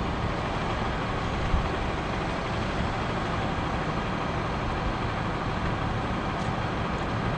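Crane truck's engine running steadily at a constant speed during a lift, with one short knock about one and a half seconds in.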